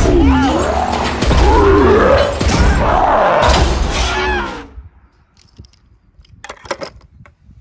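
Animated cartoon soundtrack of monster-truck action: a low engine rumble under crashing hits and loud wailing sounds that rise and fall in pitch, cutting off abruptly about four and a half seconds in. After that it is quiet, apart from a brief clatter of small knocks about two seconds later as a toy car is handled.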